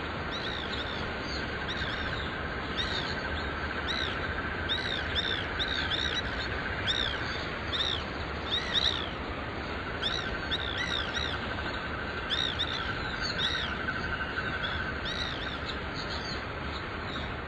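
White woodpeckers calling over and over in short, sharp, arched notes, often several in quick succession: agitated territorial calling at a suspected rival woodpecker nearby. A steady buzz runs underneath, dropping out for about two seconds near the middle.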